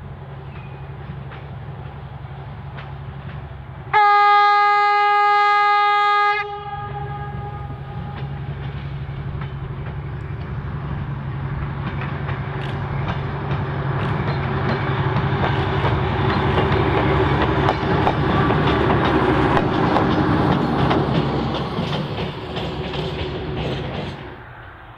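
Diesel-electric rail motor 63RM, powered by two Detroit Diesel 6-71 engines, running as it approaches. About four seconds in it sounds one horn blast lasting about two and a half seconds. After that its engine noise and the clicking of its wheels over the rails grow steadily louder as it draws near, then drop away suddenly near the end.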